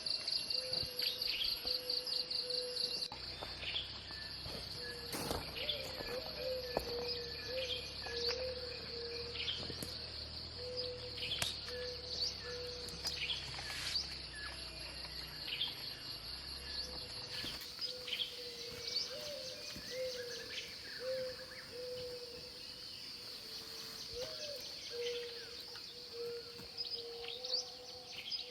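Forest ambience: insects trill steadily at a high pitch, pulsing for the first few seconds, while birds give scattered short chirps over a repeated low call.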